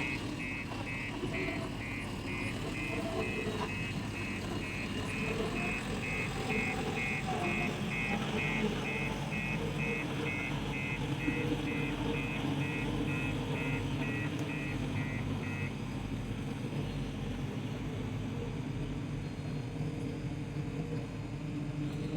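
Heavy construction machine's reversing alarm beeping rapidly and evenly over a diesel engine running steadily; the beeping stops about two-thirds of the way through while the engine keeps running.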